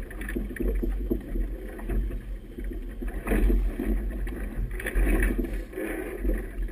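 Wind buffeting the microphone on a boat in choppy water, with water rushing and splashing against the hull in uneven surges, loudest about three and a half and five seconds in.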